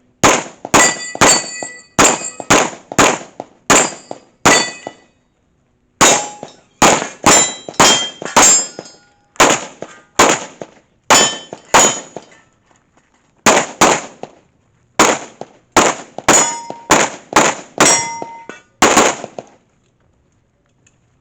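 Rapid pistol fire from a Phoenix Trinity Honcho Open-class pistol, about thirty shots in three quick strings with short pauses between them. Many shots are followed by the clang and brief ringing of steel targets being hit.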